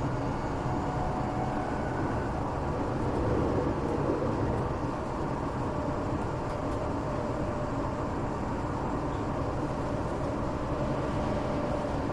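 Inside a Tokyo Metro 8000 series train car while it runs: a steady rumble of wheels on rail. A faint steady tone fades out about two seconds in.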